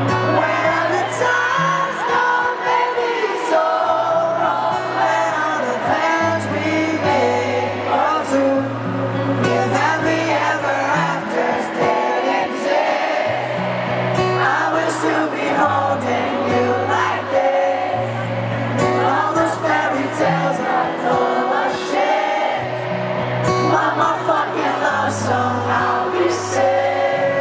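Live acoustic pop performance: a male lead singer sings over strummed acoustic guitars with a steady bass line.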